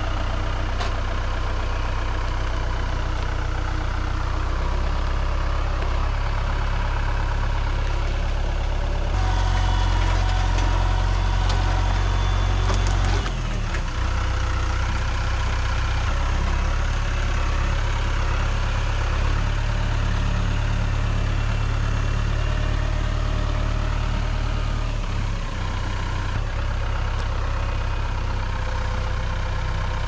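Mahindra compact tractor's diesel engine running steadily while it works a log grapple. It runs louder and deeper for a few seconds about a third of the way in, then settles back.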